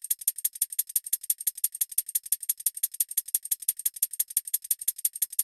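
Drum and bass shaker loop playing solo from the sequencer: a fast, even stream of short, crisp hits, about ten a second, with no bass or kick underneath. The loop is time-stretched with its transients preserved at a set rate, which keeps each hit short and tight.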